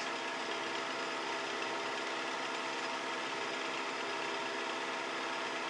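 Milling machine spindle running at a steady speed with an edge finder in it: an even hum with several fixed tones.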